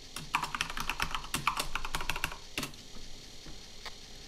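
Typing on a computer keyboard: a quick run of keystrokes for about two seconds, then one more separate keystroke a moment later.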